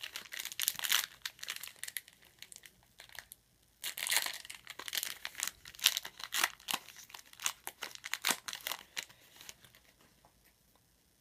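Foil trading-card pack wrapper crinkling and tearing as it is opened, in two bouts of dense rustling that die away near the end.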